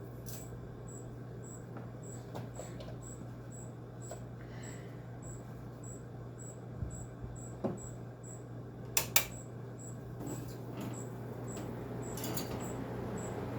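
White Westinghouse window air conditioner's blower fan running on low speed with a quiet, steady hum. A few sharp clicks come through, two of them close together about nine seconds in.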